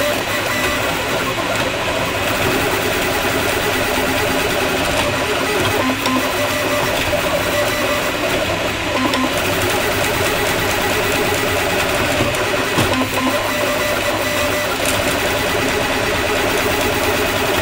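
Atomic U300 3D printer running: the stepper motors whine at shifting pitches as the print head moves in short runs, over a steady fan hum.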